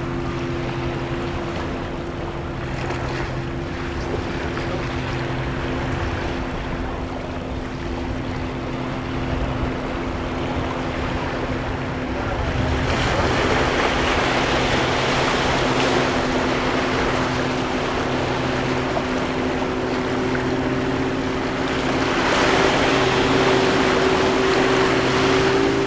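Small ocean waves washing over seaweed-covered rocks, the surf swelling louder about halfway through and again near the end. A steady low hum runs underneath.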